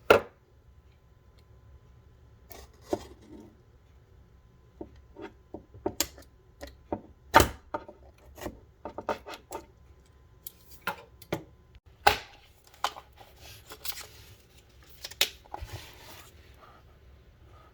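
Product packaging being torn and pulled open by hand: irregular crackles, snaps and rubbing. Sharp snaps stand out at the start, about seven seconds in and about twelve seconds in.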